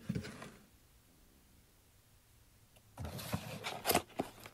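Brief handling noise, then about two seconds of near silence, then rustling and light knocks from about three seconds in as packaging and unboxed items are handled.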